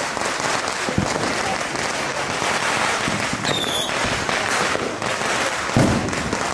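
Consumer fireworks going off all around: a continuous dense crackle of firecrackers, with a deep boom about a second in and another near the end, and a brief high whistle in the middle.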